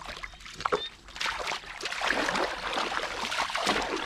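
Shallow muddy water splashing and sloshing as hands grope through it for fish, a continuous churning that starts about a second in.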